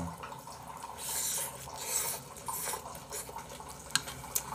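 Close-up eating sounds: wet chewing of a mouthful of mixed rice, with two sharp clicks of a utensil against a bowl near the end.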